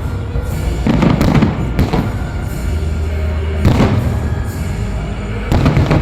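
Fireworks salute shells bursting overhead: about four loud bangs, each trailing off in a rumble, over music playing in the background.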